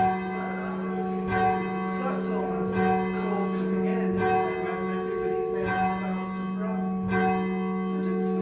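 Church tower bell being rung by its rope, struck about every one and a half seconds, each stroke ringing on into the next.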